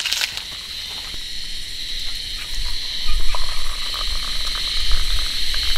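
Hot water poured from a kettle into a ceramic mug, starting about halfway in, over a steady high chirring of insects.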